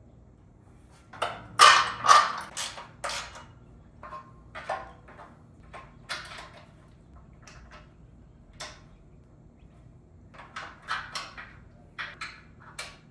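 Irregular knocks and metallic clinks of hardware and tools being handled while a steel home-gym rack is assembled, the loudest cluster about two seconds in.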